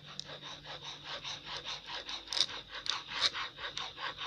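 Rapid rhythmic scraping or rubbing, about five short strokes a second, keeping an even pace throughout.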